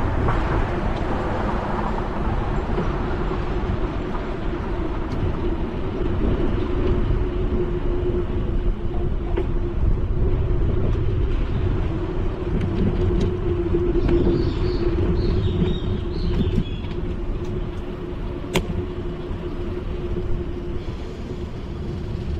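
Ride noise from a bicycle-mounted GoPro: wind rushing over the microphone and the bicycle rolling over sidewalk paving, with a steady hum throughout. A few short high chirps come around the middle, and a single sharp click about eighteen seconds in.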